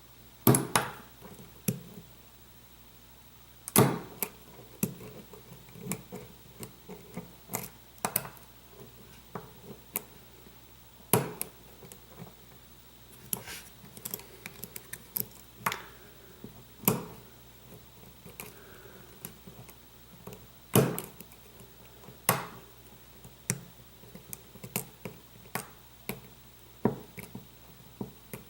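Small metal clicks and taps of a lock pick and tension wrench working the pins of a pin-tumbler lock, coming irregularly, with a handful of louder clicks among them.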